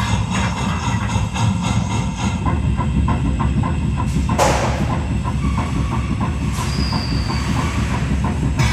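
Recorded steam locomotive running sounds played by an interactive footplate exhibit: a steady rumble with a clatter beating about four times a second. A short burst of hiss comes about four and a half seconds in.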